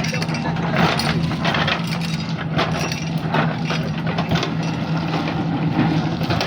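JCB 3DX backhoe loader's diesel engine running steadily, with many irregular cracks and knocks over it, as from the machine working soil and stones.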